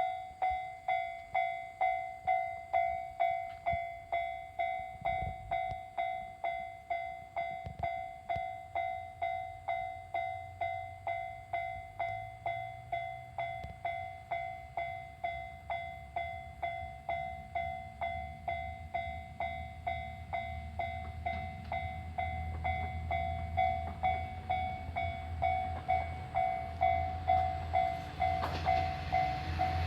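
Japanese level-crossing warning bell ringing in a steady repeating ding, about three strikes every two seconds, while an approaching diesel train's rumble builds through the second half and grows loud near the end.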